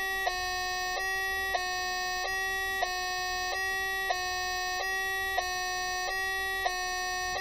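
Homemade electronic two-tone French siren, built from an astable multivibrator switching between two audio oscillators, buzzing through a small speaker. Its tone alternates between two pitches about every two-thirds of a second. A short click comes at the changeover roughly every 1.3 s, caused by the switching of the oscillators.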